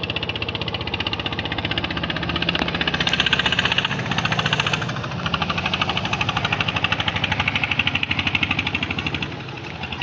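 Motorboat engine running under way with a fast, even knocking beat, growing louder in the middle and dropping near the end as the wooden boat passes.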